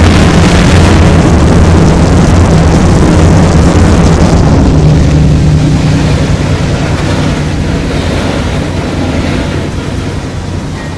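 BNSF diesel locomotive passing close by, its engine running with a loud, deep drone. It fades steadily from about six seconds in as it moves away.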